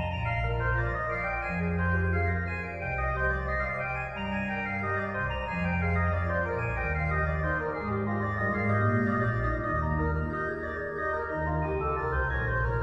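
Background organ music: slow, held chords over a bass line that moves from note to note about once a second.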